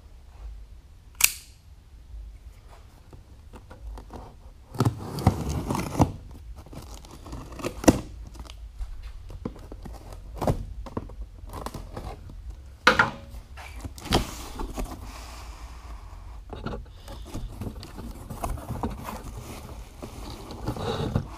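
A cardboard shipping box being opened by hand: packing tape slit and torn off in rough, ripping stretches, with sharp clicks and knocks as the cardboard flaps are handled and folded open, and rustling of the packing inside near the end.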